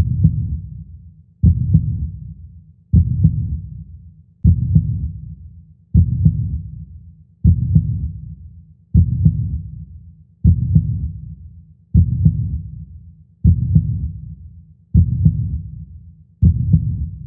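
Heartbeat sound effect: deep, slow double thumps (lub-dub), one pair about every second and a half, each dying away before the next.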